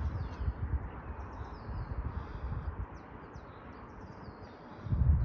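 Several songbirds chirping and singing, with short quick notes throughout. Low rumbling buffets sound under them, the loudest one just before the end.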